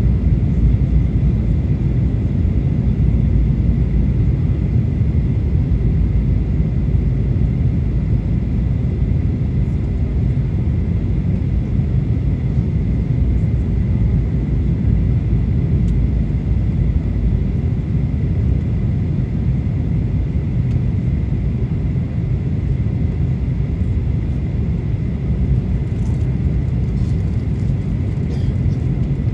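Boeing 737-900 cabin noise on approach: a steady, loud low rumble of its CFM56 jet engines and the airflow over the fuselage, with a thin steady high tone running through it.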